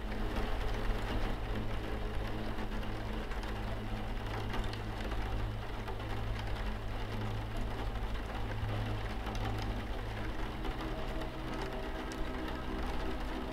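Rain on a window pane, a steady hiss with scattered drop ticks, mixed with ambient music of low held tones; a higher held tone enters about eleven seconds in.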